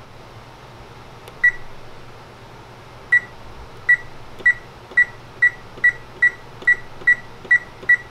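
Frigidaire oven control panel beeping once for each button press. A single short high beep comes first, then a run of about eleven that come faster and faster as the set temperature is stepped up to 400 degrees.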